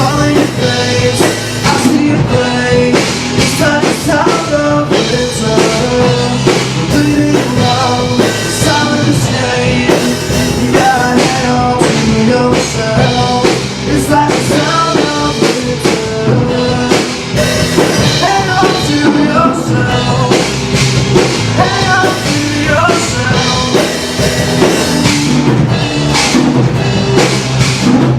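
Rock band playing live in rehearsal: drum kit and amplified instruments, with a man singing.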